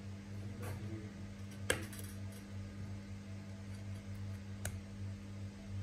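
An iPhone 7 handled by hand on a rubber bench mat: two short sharp clicks, the louder about a second and a half in and a second one about three seconds later. Under them runs a steady low electrical hum.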